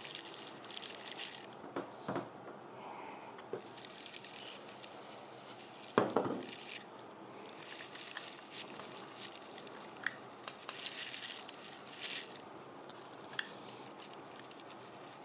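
A towel rubbing and wiping over an AR-10 rifle's receiver in stretches, with small metallic clicks and taps from the rifle. One sharp knock comes about six seconds in.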